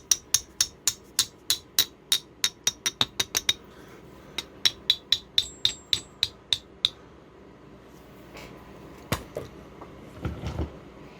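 Hammer tapping the locker's steel cross pin into a differential carrier, with quick, light, ringing metal-on-metal strikes at about four or five a second. The strikes come in two runs with a short pause between, then a single knock and a few duller thumps near the end.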